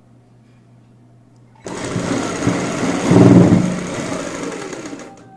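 Sewing machine stitching a long seam through cotton fabric. It starts suddenly after a quiet pause, runs fast for about three seconds, then slows and stops just before the end.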